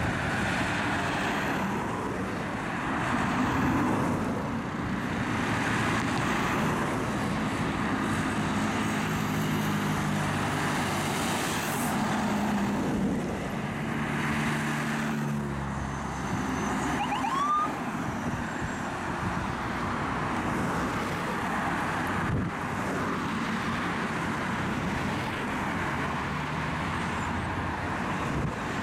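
Busy road traffic with cars passing, and the siren of a Chevrolet Express ambulance responding in emergency mode. A short rising chirp comes a little past halfway.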